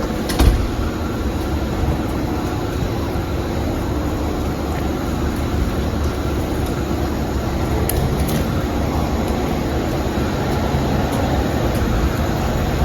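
Garbage truck engine running steadily, with a few short knocks about half a second in and twice around eight seconds in.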